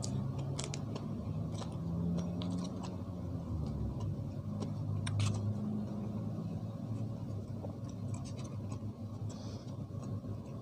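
A man chewing a mouthful of food, with scattered clicks and scrapes of a plastic spoon against styrofoam food boxes, over a steady low hum.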